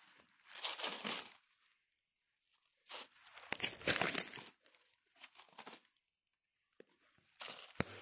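Dry pine needles and leaf litter on the forest floor rustling and crackling as they are disturbed, in three bursts: about half a second in, a longer and louder one around three to four and a half seconds in, and another near the end.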